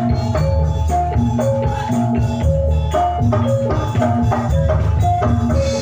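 Javanese jathilan gamelan music: a repeating pattern of short metallophone notes on a few pitches over dense drumming with a heavy bass.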